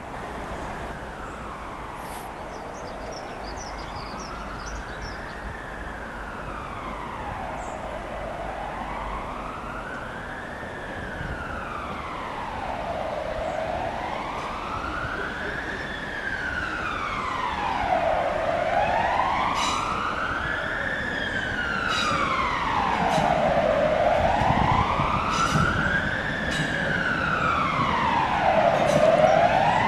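Emergency vehicle siren on a slow wail, its pitch rising and falling about every five seconds and growing louder toward the end.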